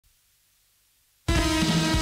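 Near silence for just over a second, then a song's instrumental intro starts abruptly: a sustained droning tone over a low pulse that repeats about every two-thirds of a second.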